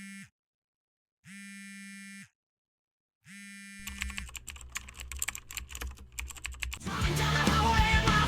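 Buzzy electronic beeps of a phone line after the call is hung up, each about a second long with a second's gap; the last is followed by a few seconds of rapid keyboard typing. Loud rock music starts near the end.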